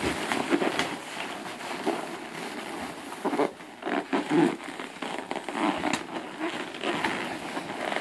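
Latex balloons rubbing, squeaking and bumping against each other as they are handled, in a run of small irregular crackles with a few louder blips about the middle.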